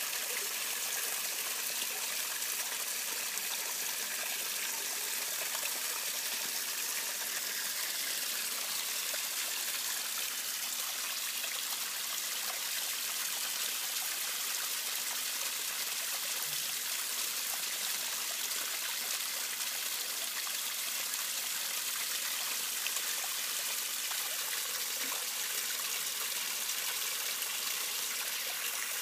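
Koi feeding at the pond surface: a steady watery churn of many small slurps and splashes as they suck down floating pellets.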